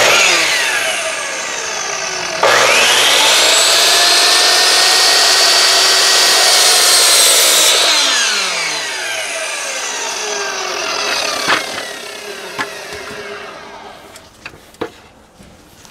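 Sliding compound miter saw. Its motor is triggered and winds down, then is started again about two and a half seconds in, rising to full speed and running steadily for about five seconds as the blade cuts through a wooden board. It then spins down when released, and a few sharp knocks follow near the end.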